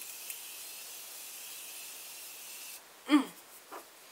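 Morphe Continuous Setting Mist bottle spraying a steady, high hiss of fine mist over the face, stopping abruptly about three seconds in. A brief vocal sound falling in pitch follows.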